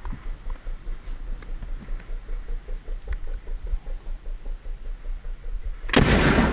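A 37 mm launcher fires a 3D-printed fin-stabilized chalk round once, about six seconds in: a single sudden loud bang. Before it there is only a low, steady background.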